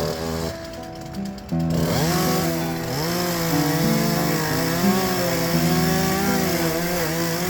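Small petrol engine starting up about a second and a half in and running at changing revs, its pitch rising and falling, over background music.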